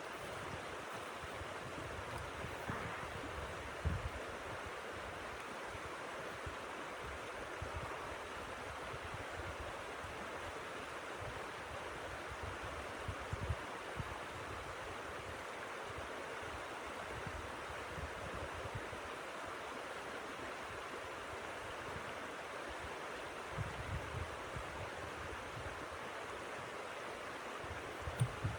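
Steady rushing blizzard wind, with scattered low buffets of wind on the microphone.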